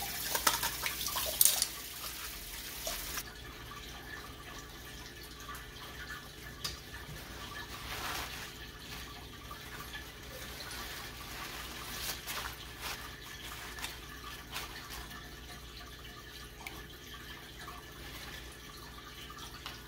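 Kitchen tap running into a sink over mustard greens being rinsed, shut off about three seconds in. After that come quieter sounds of wet leaves being handled, with soft rustles and occasional light knocks.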